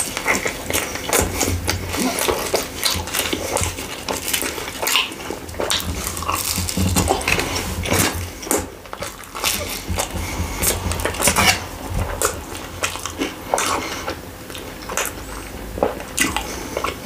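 Close-miked chewing and mouth smacking while eating kebab pizza: a continuous run of short clicks and smacks.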